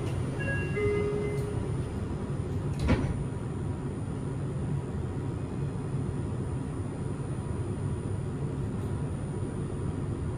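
Linimo 100-series maglev car at a station: a door-closing chime of a few short high tones, then a knock about three seconds in as the sliding doors shut, over a steady low hum from the car.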